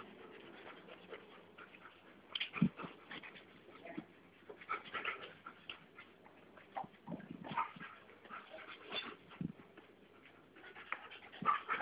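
Faint dog sounds from an adult Doberman and a young Doberman puppy at play: scattered short whimpers and scuffles, coming more often near the end.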